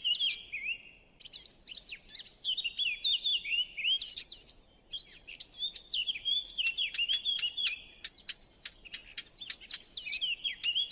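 Recorded songbird song of the kind played as a hunting lure: rapid warbling phrases of high chirps and quick up-and-down slurred notes, broken by short pauses. From about six seconds in, a fast run of sharp ticks is mixed in with the chirps.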